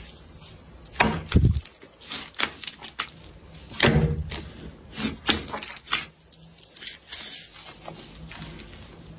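Slime being worked by hand, making irregular sharp clicks and pops, with louder, deeper squelches about a second and a half in and again near four seconds.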